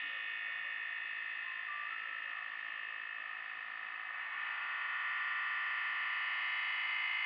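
Crystal whisky glass pressed against a spinning cutting wheel, giving a steady grinding sound as the pattern is cut into the glass. It gets louder about four and a half seconds in.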